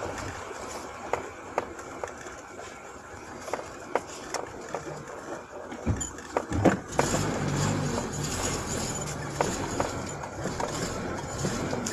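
Inside a car driving slowly over a rough, narrow road: steady engine and road noise with frequent knocks and rattles, and the low engine hum growing louder for a few seconds past the middle.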